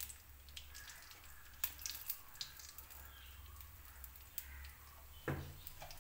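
Hot coconut oil faintly crackling, with scattered sharp pops, as chilli powder and turmeric fry in it and a spoon moves through the pan. A single knock about five seconds in.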